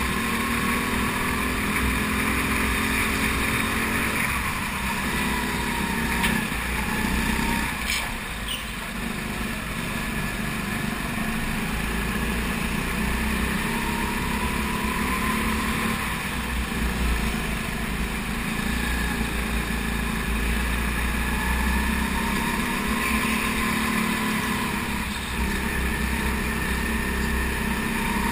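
Racing kart engine heard onboard at racing speed, its pitch sliding down as it slows into the corners and climbing again on the straights, several times over.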